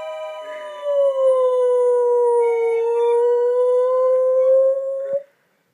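A dog howling one long note that gets louder about a second in, sags slightly in pitch through the middle and rises again, then cuts off about five seconds in.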